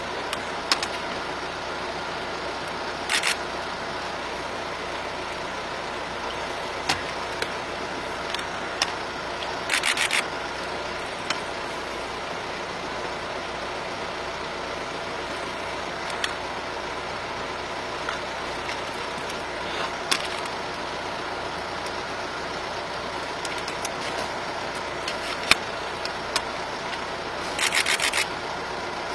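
A motor vehicle's engine idling with a steady hum, with scattered clicks and three short crackling bursts over it.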